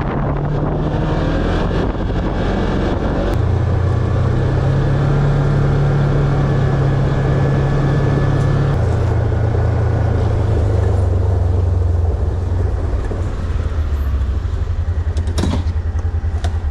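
Motor vehicle engine running under way, its low hum stepping up in pitch a few seconds in, then down twice, and pulsing rapidly near the end.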